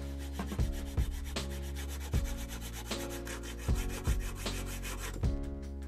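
Junior hacksaw cutting through an aluminium tube, the blade rasping back and forth in a steady run of strokes.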